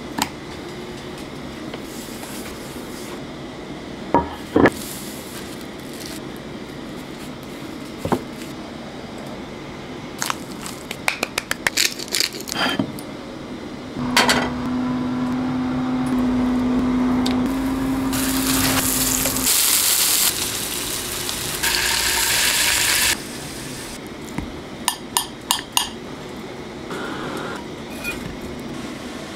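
Kitchen handling sounds: a frying pan, plates and utensils knocking and clinking. A steady hum runs for about five seconds midway, followed by two short spells of hiss, and there is a quick run of clicks near the end.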